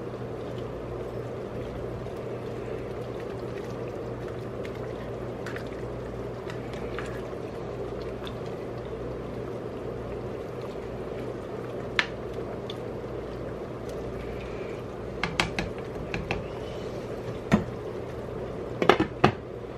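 A pot of cabbage soup simmering and being stirred with a spatula, liquid sloshing steadily. Near the end come a few sharp clanks as the glass pot lid is handled.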